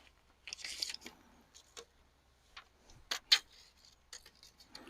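A few scattered sharp clicks and knocks over quiet surroundings; the loudest two come close together a little after three seconds in.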